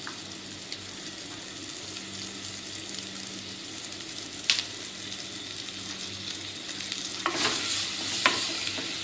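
Sliced onions sizzling in hot coconut oil in an earthenware pot, with a single sharp crackle about halfway through. In the last couple of seconds a wooden spoon stirs them, adding louder scraping and clacking against the pot.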